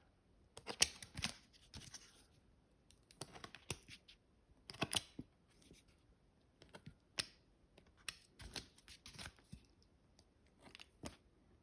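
Wallpaper over a switch plate being slit and handled: scattered short, scratchy clicks and light rustles as little X cuts are made over the screw holes.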